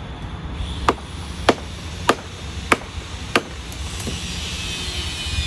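Hammer striking an improvised wooden wedge driven into the back cut of a dead tree being felled: five sharp blows about every 0.6 s, then a lighter sixth.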